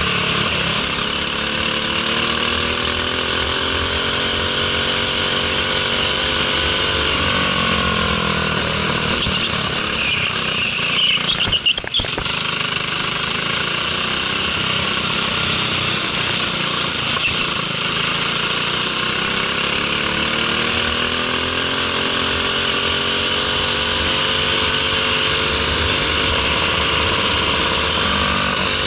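Briggs & Stratton LO206 single-cylinder four-stroke kart engine running at racing speed, heard onboard the kart; its pitch drops as it slows for corners and climbs again on the straights, several times over. A short clatter sounds about twelve seconds in.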